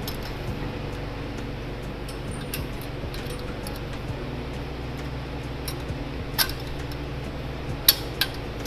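Wire hanger hooks clinking against an LED grow-light fixture and its metal strut channel as the light is hung: a few sharp metallic clinks in the last few seconds, the loudest near the end. A steady low hum runs underneath.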